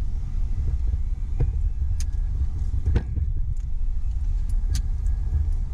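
Low, steady rumble of a car's engine and tyres heard from inside the cabin while driving, with a few short sharp knocks; the loudest knock comes about three seconds in.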